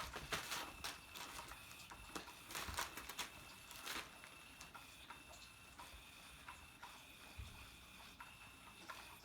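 A battery-powered cat toy's small motor runs with a steady high whine. Irregular clicks and rattles over it are thick in the first few seconds, then sparser.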